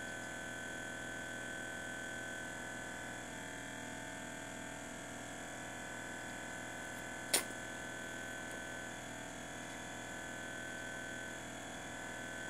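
Steady hum of running aquarium equipment, made of several constant tones, with a single sharp click about seven seconds in.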